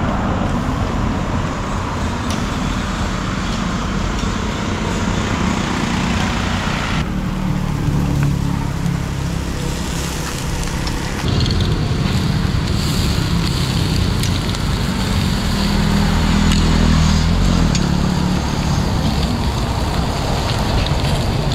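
Road traffic going by: cars and other motor vehicles passing on the street, a steady mix of engine hum and tyre noise that changes abruptly about seven seconds in.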